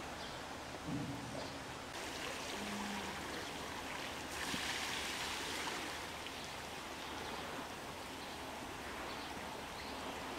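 Water in a polar bear's pool, running and splashing steadily, with a louder rush of water for about a second and a half around four seconds in.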